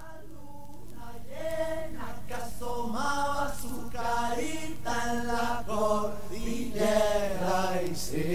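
Voices singing a chant-like vocal intro to a song in sustained, gliding notes, fading in at the start, over a steady low hum.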